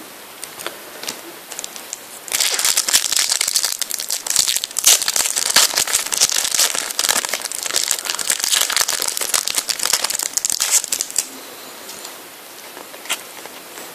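Panini FIFA 365 trading-card packet crinkling and rustling as it is opened and handled by hand, starting about two seconds in and stopping a few seconds before the end, with a single small click near the end.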